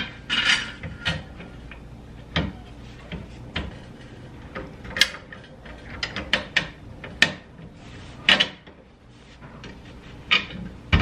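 Irregular metallic clicks and knocks of a bolt, nut and tubular rear suspension arm being handled and fitted to the subframe by hand, with a few sharper knocks among lighter clicks.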